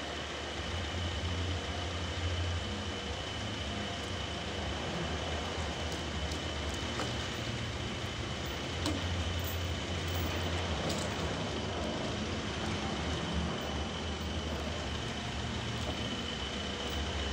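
Sawmill running steadily: a continuous low engine drone that swells and eases, with a steady high whine over it.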